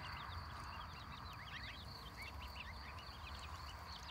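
Young poultry (chicks, ducklings and goslings) peeping: a busy, overlapping chorus of short, high peeps, several a second.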